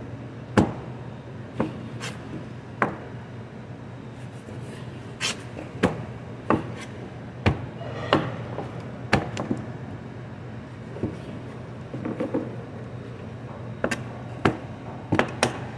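Knife and strip-loin beef knocking against a plastic cutting board during trimming and cutting: irregular sharp knocks, some close together, over a steady low hum.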